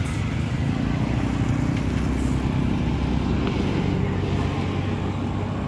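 A motor vehicle's engine running steadily with road noise, heard from a vehicle moving along a busy town road.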